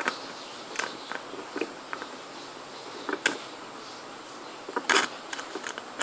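Plastic feeding syringe being worked in a glass cup of bird hand-feeding formula, drawing the mash up: scattered short clicks, scrapes and slurps, the loudest cluster about five seconds in.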